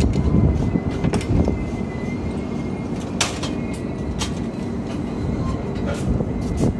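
Humsafar Express LHB passenger coach running along the track: a steady rumble of wheels on rails with a faint thin high squeal, broken by several sharp clacks about one, three and four seconds in.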